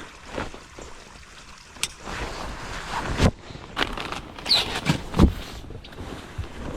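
Wind and water noise on a fishing boat, with scattered irregular knocks and bumps of handling, and a brief squeak about halfway through.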